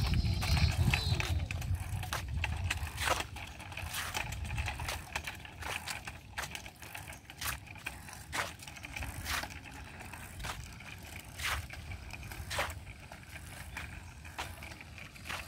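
Low rumble of wind on the microphone, heaviest in the first two seconds, with light sharp knocks about once a second from movement outdoors.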